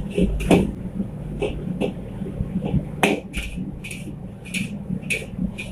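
Long-handled metal ladle striking and scraping against a large steel wok while stir-frying, about ten sharp clanks at an irregular pace over a low steady rumble.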